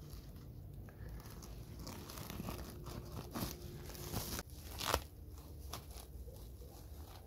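Woven plastic sack crinkling and rustling as stone blocks are shifted about inside it, with scattered crackles and a single sharp knock about five seconds in.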